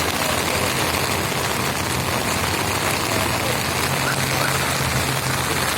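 Heavy rain falling steadily, a dense even hiss with a low steady hum underneath.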